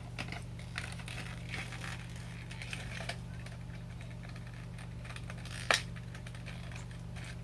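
Plastic toy packaging being handled and cut open: faint rustling and small clicks, with one sharper click near six seconds in, over a steady low hum.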